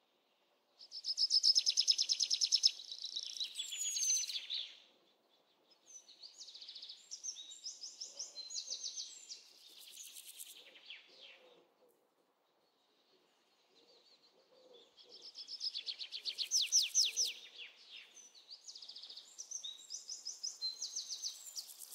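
A songbird singing in three bouts of quick high chirps and rapid trills, with short pauses between them.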